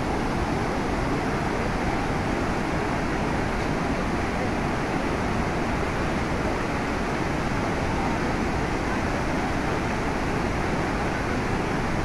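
Salto de Eyipantla waterfall: a steady, unbroken rush of a large volume of water plunging over the rock ledge and churning in the pool below.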